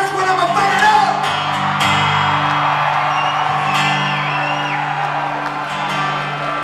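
Two acoustic guitars strummed together in a live country song, mostly without vocals, with a brief whoop from the audience about four seconds in.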